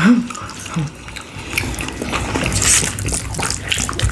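Close-miked eating sounds: wet chewing and mouth clicks of someone eating ribs in sauce, a quick irregular run of small sticky clicks.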